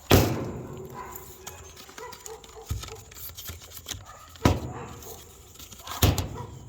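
Four sharp knocks or thumps spread over several seconds, the first the loudest, with a dog barking.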